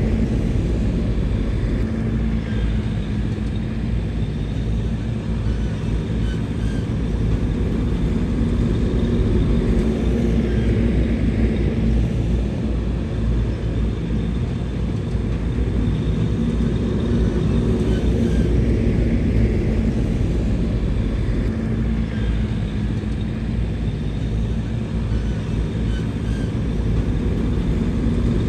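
Bulldozer's diesel engine running steadily, its low drone easing and swelling slightly now and then.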